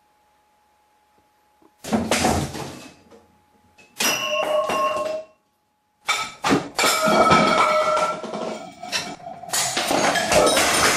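A faint steady hum, then about two seconds in a sudden loud crash, followed by more crashes and clattering of household objects, some with a ringing tone; the clatter is nearly continuous over the second half.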